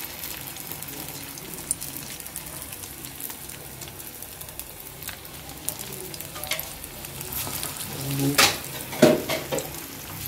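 Balls of minced chicken deep-frying in hot oil in an iron karahi, a steady sizzle with constant crackling. A few louder crackles and spatters come near the end.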